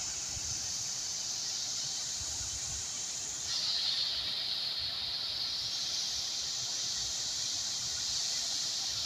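Large tiered fountain splashing: a steady hiss of falling and spraying water, a little louder from about three and a half seconds in.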